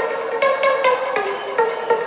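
Music: a quick melody of short, separate notes, several a second.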